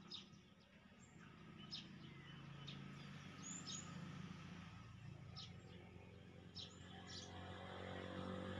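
Faint bird chirping: scattered short, high chirps, about a dozen of them, over a low steady hum that grows louder near the end.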